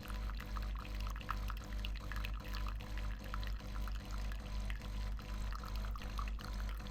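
De'Longhi Rivelia coffee machine dispensing hot water into a cup for an Americano. Water trickles into the cup over the steady hum of the machine's pump.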